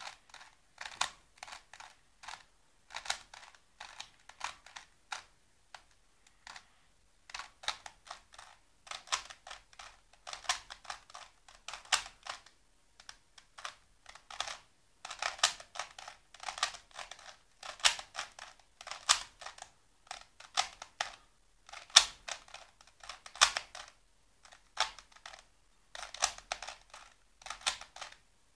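Plastic Rubik's cube being turned by hand: quick runs of clicks and clacks as the layers are twisted, with short pauses between runs.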